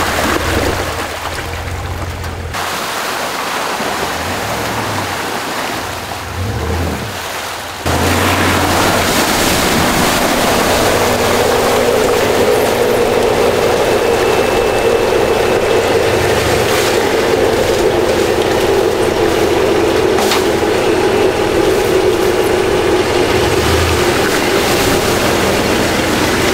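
Ram 1500 Rebel pickup with a 5.7 Hemi V8 driving off-road: the engine runs under a steady rushing noise, which gets louder about eight seconds in.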